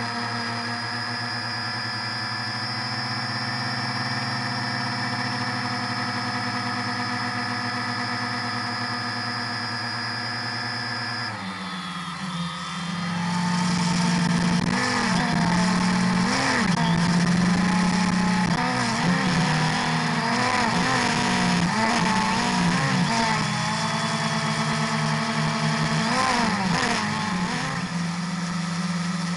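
Multirotor drone's electric motors and propellers whining, heard from the onboard camera, steady at first. About a third of the way in the pitch changes abruptly, and from then on it rises and falls repeatedly.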